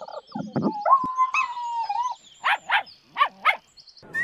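A dog's recorded vocalizations: one long howl-like call, then four short barks in two quick pairs.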